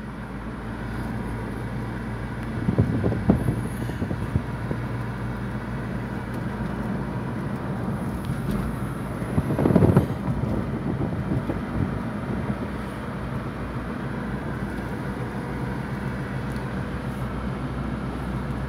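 Steady road and engine noise of a moving car heard from inside the cabin, briefly louder twice, about 3 and 10 seconds in.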